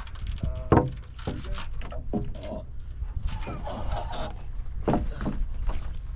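Irregular knocks and thuds of building work, the loudest about a second in, over a steady low rumble.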